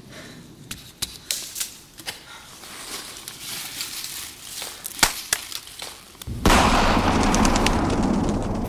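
Scattered sharp snaps and cracks, like twigs breaking in the forest, several in the first couple of seconds and two more about five seconds in. About six and a half seconds in comes a sudden loud, low rumbling swell, the loudest sound here, which slowly fades.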